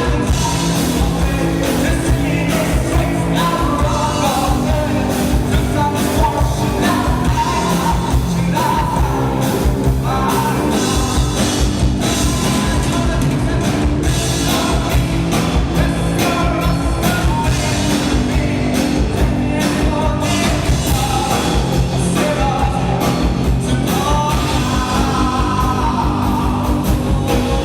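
Rock band playing live with a lead singer: sung vocals over drums and a full band mix, loud and continuous.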